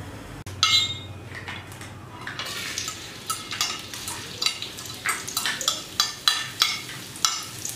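A loud clatter about half a second in, then a metal fork tapping and scraping on a ceramic plate about three times a second as minced shallot and garlic are pushed off it into a wok, over a light sizzle from the wok.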